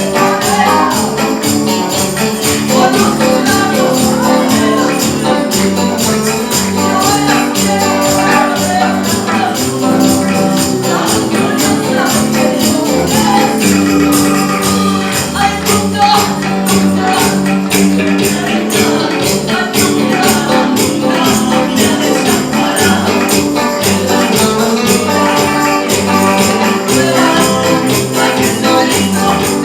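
Christian praise band music with a tambourine shaking a steady beat over sustained instruments.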